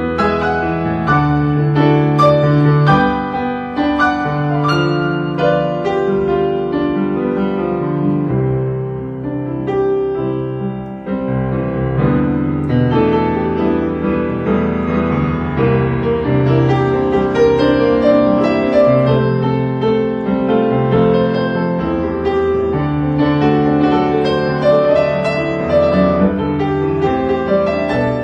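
Background piano music, notes played in a continuous gentle melody with chords.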